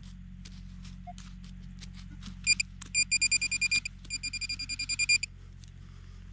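Metal detector beeping in two rapid runs of short, high-pitched pulses as it is swept over a buried metal target. Light scraping and clicking of digging in soil comes before the beeps.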